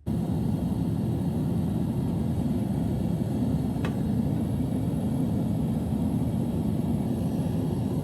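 Gas burner of a Devil Forge metal-melting furnace running: a steady, even rushing noise weighted low, cutting in abruptly, with one faint tick about four seconds in.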